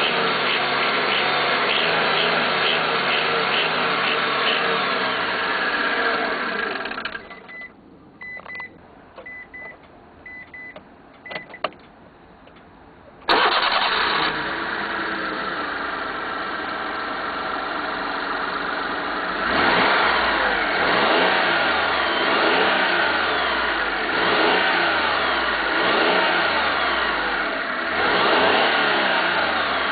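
Mitsubishi 3G83 three-cylinder engine of a Town Box/Minicab kei van running, then switched off about seven seconds in. A row of short electronic beeps and a few clicks follow. The engine restarts about thirteen seconds in, idles, and from about twenty seconds is revved up and down repeatedly.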